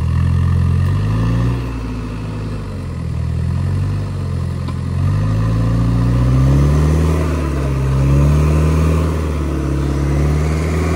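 Mitsubishi Pajero 4x4's engine labouring through deep mud, the revs rising and falling over the first few seconds and then held steady and higher.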